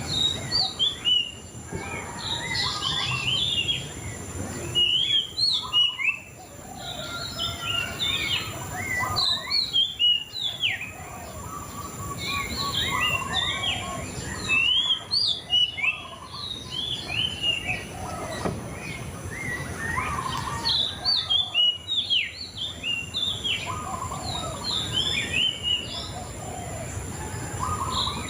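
A murai cacing songbird singing: fast, varied phrases of short rising and falling chirps and whistles, broken every few seconds by brief pauses.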